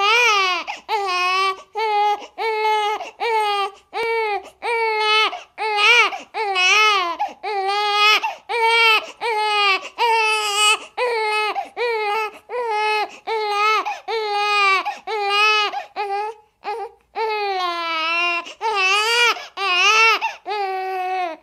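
Baby crying: a steady run of short, repeated wailing cries, about one or two a second, each rising and falling in pitch.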